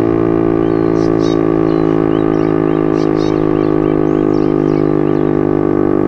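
STL-10 tsunami warning siren sounding a steady alert tone for its weekly test: one loud, unwavering drone with strong overtones.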